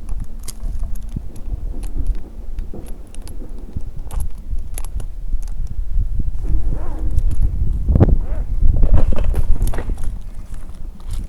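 Close, uneven knocking, scraping and rustling with sharp metallic clinks, like a tree climber's gear and helmet-mounted camera rubbing and knocking against the trunk, loudest near the end. No chainsaw is running.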